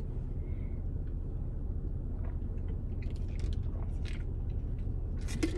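A person sipping a drink and swallowing, with small wet mouth and lip clicks, over a steady low rumble inside a car.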